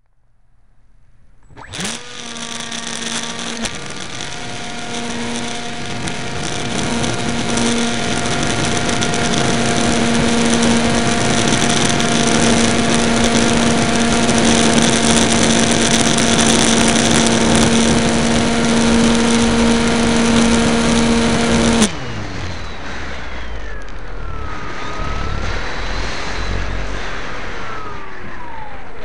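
Bixler RC plane's electric pusher motor and propeller, heard up close through the onboard camera. The motor spins up about two seconds in, then runs at a steady, held pitch with air rushing past. About three-quarters of the way through the throttle is cut, and the motor note gives way to quieter wind noise with a slowly drifting pitch.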